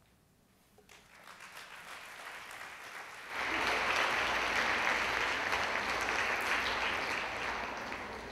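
A large seated audience applauding. The clapping starts about a second in and builds, swells suddenly to full applause a little after three seconds, then eases slightly near the end.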